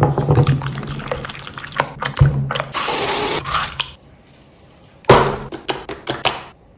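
Slime being crushed: wet, crackling squelches in two spells, with a hiss a few seconds in and a short pause before the second spell.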